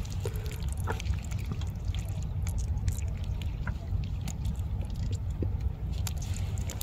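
Wet fishing net being handled by hand: scattered small clicks, rustles and drips of water over a steady low rumble.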